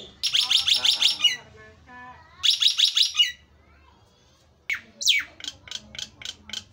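Caged myna (jalak nias) calling loudly: two bursts of rapid, shrill repeated notes, then after a short pause two sharp falling whistles followed by a quick run of short notes.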